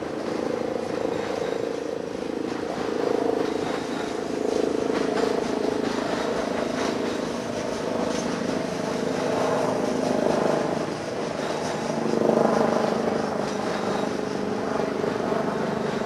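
Double-stack container freight train rolling past: a steady noise of steel wheels on rail, swelling and easing slightly as the cars go by.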